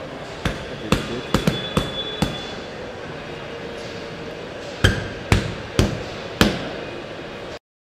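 A series of about ten sharp knocks over a steady background hum: a quick run of six, a pause, then four more. All sound cuts off abruptly shortly before the end.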